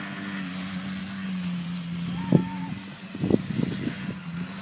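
A quad bike's engine running at a steady pitch, with a sharp knock a little over two seconds in and a few shorter knocks about a second later.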